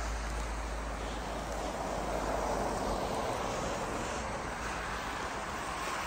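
Road traffic: a lorry driving past on the road, its tyre and engine noise swelling about two seconds in and then easing. Another vehicle's noise builds again near the end.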